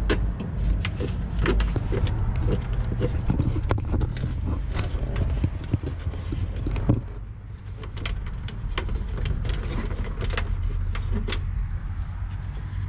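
Irregular clicks and knocks of a boost-gauge vacuum hose and its fittings being handled and pushed into place, over a steady low rumble; the clicking thins out about seven seconds in.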